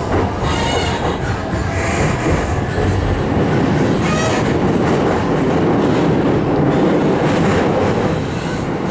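Running noise of a JR East E531 series electric train heard from inside the passenger car by the doors: a steady rumble of wheels on the rails as the train travels.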